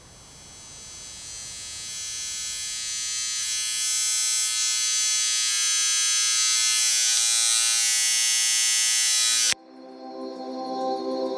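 Electric tattoo machine buzzing, swelling steadily louder over about nine seconds and then cutting off abruptly. Soft ambient music with held tones follows near the end.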